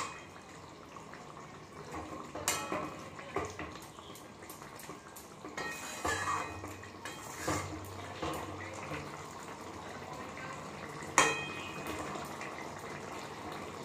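Wooden spatula stirring a thick vegetable curry in a metal kadai, with scraping and scattered knocks against the pan, the sharpest about eleven seconds in.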